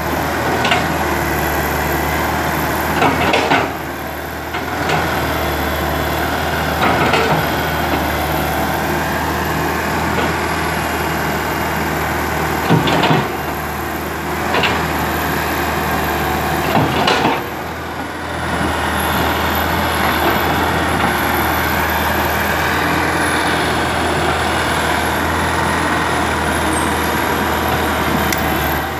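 Komatsu PC120 hydraulic excavator's diesel engine running steadily under working load while it digs, with about half a dozen short sharp knocks from the bucket and boom, mostly in the first half.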